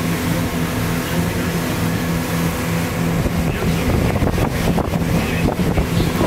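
Boat engine running with a steady low hum as the boat crosses the river. From about three seconds in, wind buffets the microphone in gusts over the engine.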